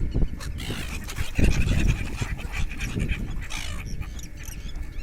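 Many birds calling over one another in short, wavering high calls, with a low rumbling noise that swells about a second and a half in.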